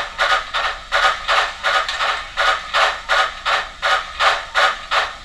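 Simulated articulated steam-locomotive exhaust from a SoundTraxx steam sound decoder: a rapid run of chuffs, about four to five a second. The fast wheel-slip rate is selected, so the chuffs of the two driver sets drift in and out of sync, and their spacing and strength keep shifting.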